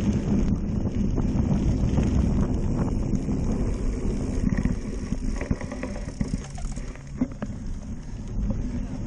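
Wind buffeting a bike-mounted camera's microphone, over tyre rumble and rattling clicks from a cyclocross bike riding on a rough dirt course. The noise eases about halfway through as the bike slows down.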